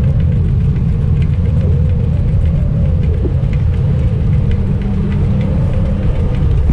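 Wind buffeting the microphone of a wrist-mounted action camera on a moving bicycle: a loud, steady low rumble, with faint scattered ticks.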